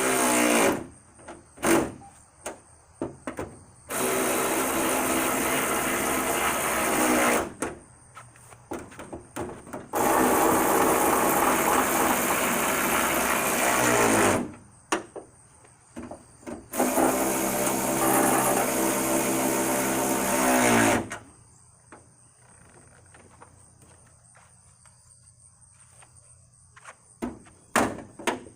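Electric drill running in four bursts of about three to four seconds each, its motor pitch dropping as each run stops, with small clicks and handling knocks between runs.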